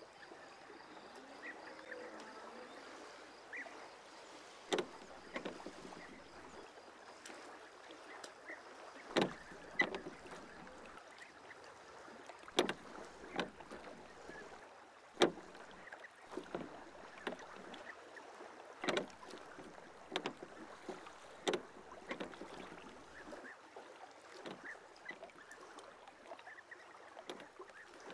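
A wooden rowboat being rowed with a pair of oars: sharp wooden knocks of the oars in their oarlocks, the loudest coming roughly every three seconds, over a faint steady wash.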